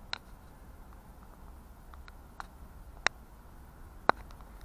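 A few sharp clicks close by, four in all and unevenly spaced, the last two the loudest, over a faint low rumble.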